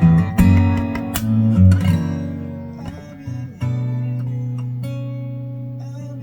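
Acoustic guitar playing chords: several strummed chords in the first two seconds, then one chord left ringing and slowly fading.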